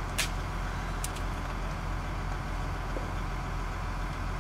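Heavy diesel engine running steadily with a low hum, with a sharp click about a quarter second in and a fainter one around a second in.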